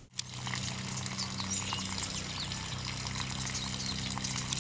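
Water running and pouring, over a steady low hum, with birds chirping now and then.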